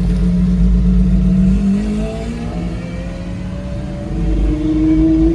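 Car engine running with a deep rumble and a steady note that eases off about two seconds in. The engine note then climbs and grows louder near the end as the car accelerates.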